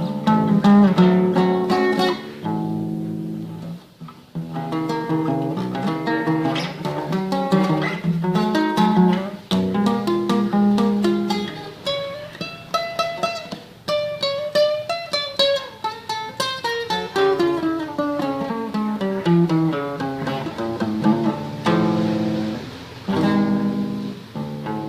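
Classical guitar playing a tremolo passage: fast repeated plucked treble notes over plucked bass notes, with a brief lull about four seconds in.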